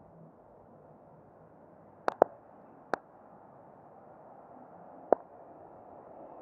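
Steady, muffled outdoor background noise, broken by four sharp clicks: two in quick succession about two seconds in, one just under a second later, and one about five seconds in.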